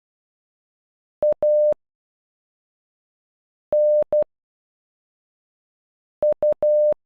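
Morse code sent as a steady mid-pitched beep, one letter at a time with about two seconds of silence between letters. It spells A (dot-dash), then N (dash-dot), then U (dot-dot-dash).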